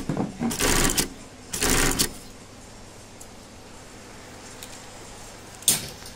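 Industrial sewing machine running in two short bursts of rapid stitching, each about half a second long, in the first two seconds. After that only a low steady background remains, with one sharp click near the end.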